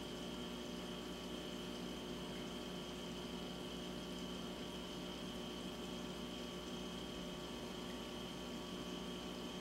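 Steady hum of reef aquarium pumps with water circulating: a constant low drone and water hiss, with a thin high whine running through it.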